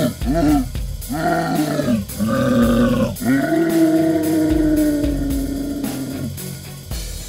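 A hairy film monster roaring: four drawn-out calls that rise and fall in pitch. The last one is held for about three seconds. Music with a steady beat plays under them.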